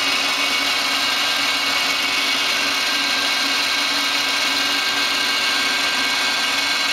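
Citizen L20 CNC Swiss lathe running with a steady hum and whine of its motors while the main tool slide is jogged.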